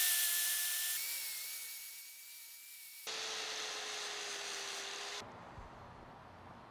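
Small angle grinder running against a carbon fiber rudder part, a hissing grind with a steady whine. It comes in three short runs that each start and stop abruptly, the whine at a different pitch each time. It goes quiet a little after five seconds in.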